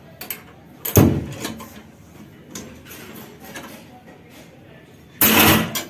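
Steel rebar clanking and scraping against a manual ring-bending machine as bent bars are handled and pulled free: one sharp metal clank about a second in, light clicks, and a louder rattling scrape near the end.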